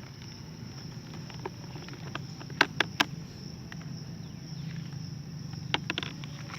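Steady high-pitched insect drone, with two quick sets of three sharp clicks, about two and a half seconds in and again near the end.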